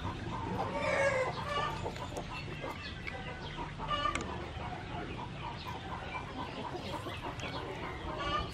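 Chickens clucking in short bursts of calls, about a second in, around four seconds in and again near the end, over a steady low background hum.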